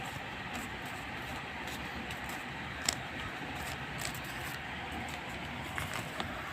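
Steady background noise with a few faint clicks and taps, and one sharper click about three seconds in.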